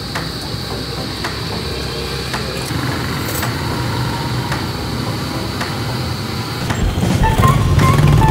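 Street traffic: vehicles running past a roadside, then, about seven seconds in, louder engine rumble of motorcycles and motorized tricycles on a busy street.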